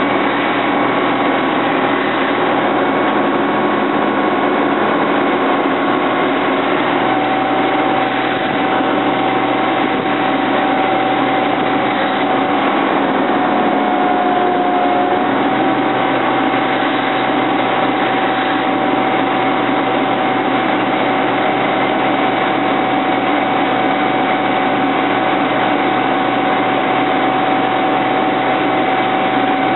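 Seismic vibrator truck's engine running steadily at close range. A steady whine comes in about seven seconds in, dips briefly in pitch about halfway through, then holds.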